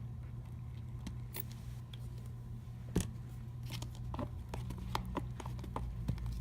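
A spoon stirring thickening slime in a bowl: scattered short clicks and scrapes of the spoon against the bowl, more frequent in the second half, as the slime starts to come together after contact lens solution is added.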